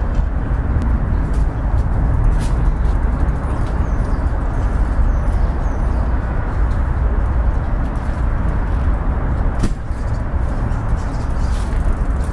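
Steady low rumble of traffic, with a few faint clicks.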